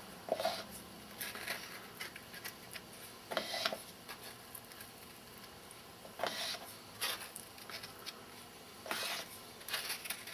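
Paste wax being scooped and scraped out of its tin into another container: a string of short scrapes and squishes every second or so.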